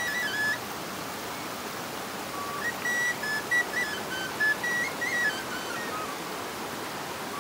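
A wanjli, a shepherd's flute, playing a high folk melody in short phrases of stepped, ornamented notes, breaking off about half a second in and resuming for a longer phrase from roughly two and a half seconds to six seconds.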